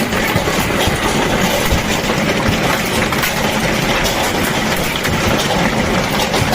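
Hailstones pelting hard surfaces during a severe hailstorm: a dense, continuous clatter of countless impacts over a steady roar.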